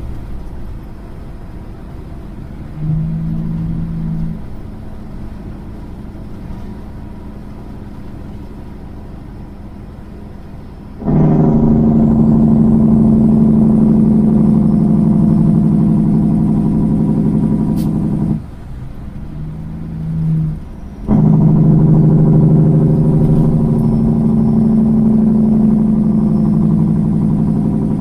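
Straight-piped diesel of a Kenworth semi truck with its Jake (engine) brake on as the truck slows: a loud, steady, pitched chatter that cuts in suddenly about eleven seconds in. It drops out for about two seconds, typical of a gear change, then comes back on. Before that, a steady engine and road drone with one short louder burst a few seconds in.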